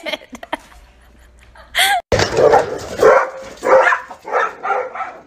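A dog barking five times in a row, the barks a little over half a second apart, after a single shorter yelp just before.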